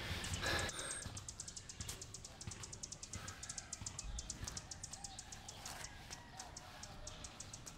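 Faint outdoor insect chirring in a rapid, even pulse of high-pitched ticks, with a few soft bird chirps. A brief rush of breath-like noise comes just after the start.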